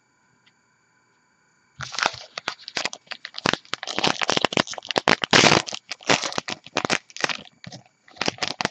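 Foil wrapper of a 2014 Topps Gypsy Queen baseball card pack being torn open and crinkled by hand: a dense run of sharp crackles that starts about two seconds in.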